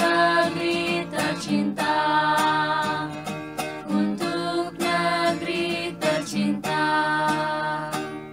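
Background music: the closing bars of a song with strummed guitar accompaniment, fading out near the end.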